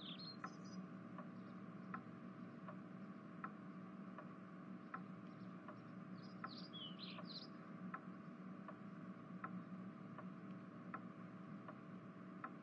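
Faint room ambience: a clock ticking about every three-quarters of a second over a steady low hum, with birds chirping in two short bursts, at the start and about six seconds in.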